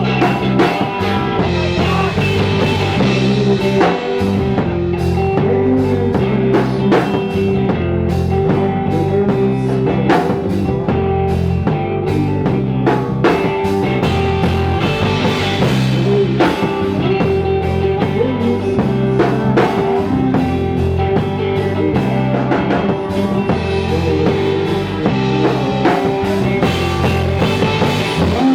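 Rock band playing live: electric guitars, bass guitar and drum kit, with a steadily pulsing bass line and a long-held note over the drums.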